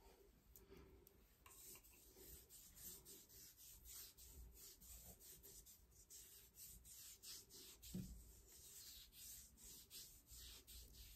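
A hand rubbing back and forth over a bare leg's skin, a faint swishing in quick repeated strokes, with a soft thump about eight seconds in.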